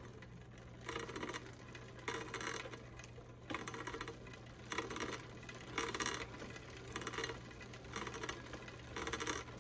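Bicycle drivetrain turned by hand in short bursts, about once a second, the chain ticking fast over the chainring and cogs while front derailleur rub is checked.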